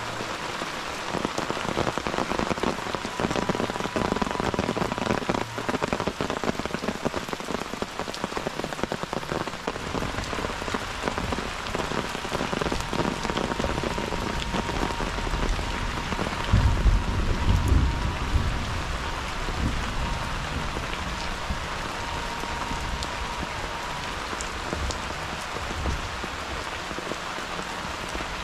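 Steady rain falling, a continuous patter, with a brief low rumble a little past halfway that is the loudest moment.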